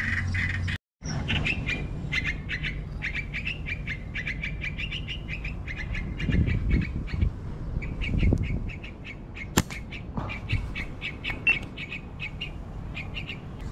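Birds in a tree canopy chirping rapidly and continuously in many quick high notes, with one sharp click about nine and a half seconds in.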